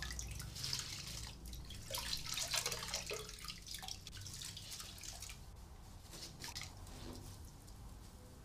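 Tap running into a washbasin full of soapy water while clothes are scrubbed and sloshed in it by hand. The splashing is loudest in the first three seconds or so, then dies down.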